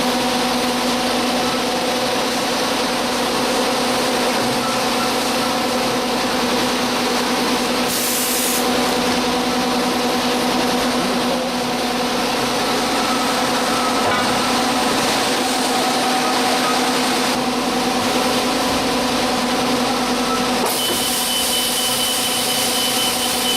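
Industrial three-arm winding machine running steadily, a constant mechanical hum over a noisy whirr. There is a short hiss about eight seconds in, and a thin high whine joins near the end.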